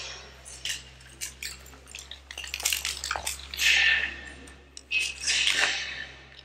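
Metal rope access hardware, such as carabiners and devices, clinking and rattling as it is handled. There are sharp clicks and light jingles throughout, with two longer rustling swells, one about halfway through and one near the end.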